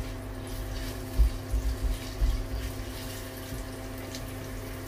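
Sliced shallots and garlic sizzling in hot oil in a nonstick wok while being stirred with a silicone spatula, with a few soft knocks in the first half and a steady low hum underneath.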